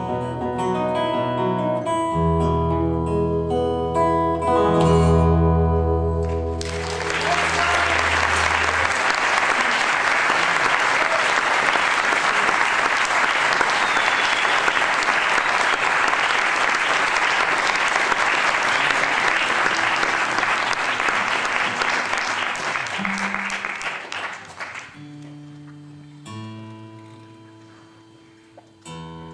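Solo acoustic guitar playing the last phrases of a tune and ending on ringing low bass notes. Then an audience applauding for about eighteen seconds, the loudest part. As the applause dies away, a few single guitar notes sound while the guitar is being retuned.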